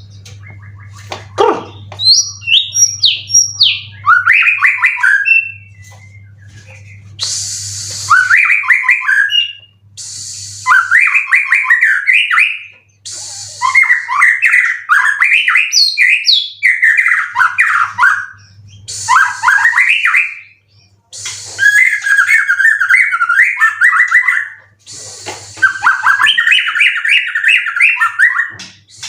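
White-rumped shama (murai batu) singing loud, varied phrases of rapid whistled notes and trills, about nine bursts with short pauses between them. Some phrases carry a harsh rasping edge, and a low steady hum is heard in the pauses.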